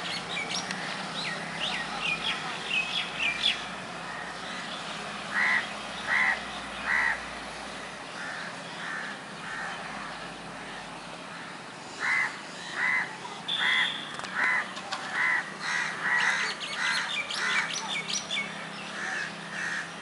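Crows cawing: three caws about five seconds in, then a longer run of caws from about twelve seconds, each about half a second apart. Small birds chirp rapidly in the first few seconds.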